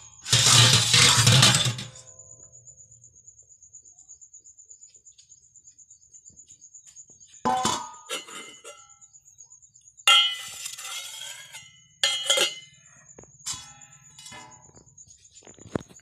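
Stainless steel dish lids and plates clinking and ringing as they are handled and set down, with about six separate clinks in the second half, some ringing on briefly. A loud, dense sound fills the first two seconds.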